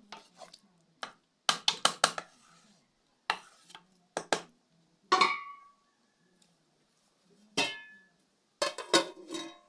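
A metal spoon knocking against a metal cooking pot while stirring: clusters of sharp clinks, two of them ringing out briefly.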